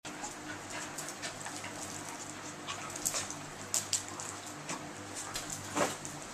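Two dogs play-fighting over a toy: scuffling with short sharp clicks and snaps, and a brief growl from the tan dog near the end as it bares its teeth.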